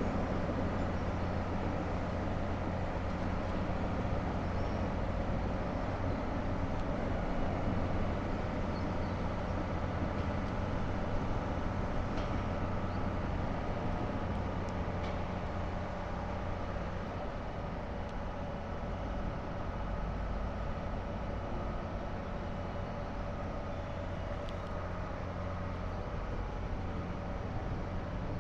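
Heavy demolition machinery's diesel engine running steadily, a continuous low drone with a few faint clicks over it.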